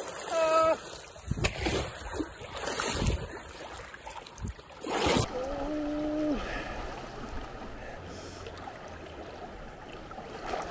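Water splashing and churning as a person wades through a deep river, with a brief high-pitched vocal cry about half a second in. The splashing stops abruptly about five seconds in, leaving a softer steady rush of flowing water.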